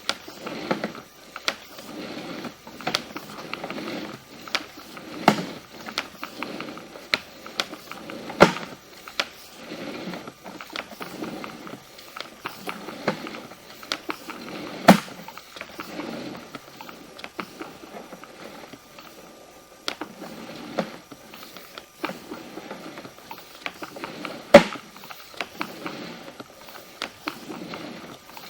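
Irregular clicks and knocks with short scraping swells about once a second, a few knocks sharper and louder than the rest: handling noise from a sewer inspection camera's push cable being fed through the cleanout into the sewer line.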